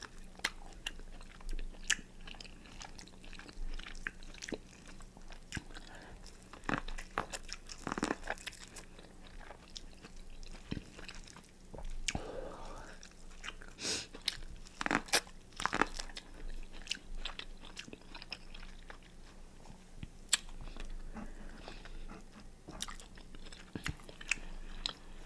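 A person eating close to the microphone, chewing and biting food from a pig-foot boil with many irregular wet clicks and smacks; a few are louder about halfway through.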